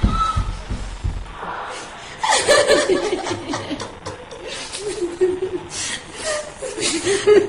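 A person chuckling in short, breathy bursts, starting about two seconds in.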